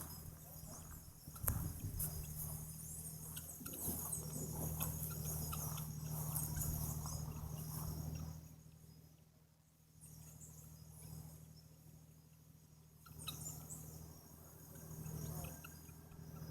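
Faint, steady, high-pitched chirring of insects, with a low hum beneath. It drops away for a few seconds around the middle, then returns.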